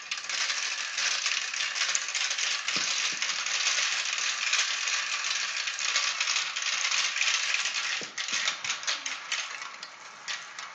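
Marbles rattling and clattering down a plastic marble-run track, a dense clatter of clicks that thins to scattered clicks after about eight seconds.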